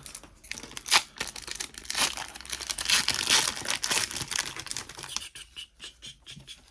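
Foil booster-pack wrapper being torn open and crinkled by hand, with a sharp tear about a second in and a dense run of crinkling in the middle that thins out near the end.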